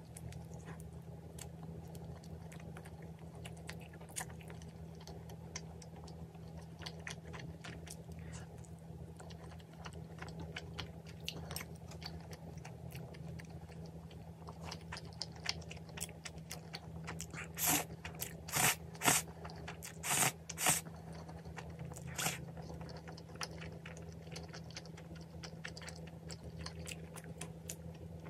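Close-miked mukbang eating of pizza and spicy ramen noodles: chewing and biting with many small crunchy clicks. About two-thirds of the way in comes a run of about six louder, short slurps of the noodles. A faint steady low hum runs underneath.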